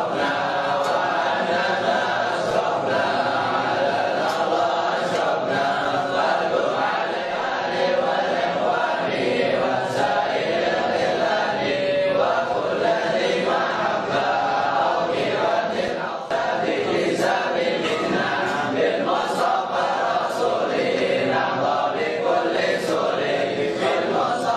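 A crowd of men chanting together, many voices overlapping in a steady devotional recitation.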